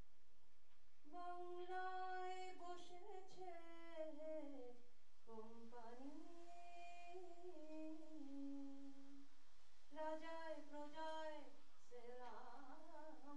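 A woman singing solo, without accompaniment, in long held notes that glide slowly up and down. The song comes in about four phrases, with short breaths between them.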